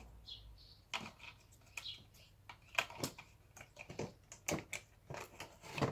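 Irregular light clicks and taps of small plastic parts being handled as a handheld vacuum cleaner's housing, buttons and wiring are fitted back together, about a dozen clicks spread unevenly.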